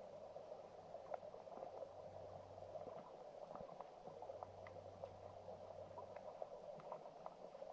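Faint, muffled underwater sound of a shallow stream: a steady low rush of flowing water with scattered small ticks and clicks.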